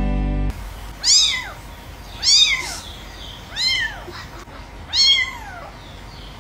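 A kitten mewing: four short, high-pitched mews, each rising then falling in pitch, about one every second and a half.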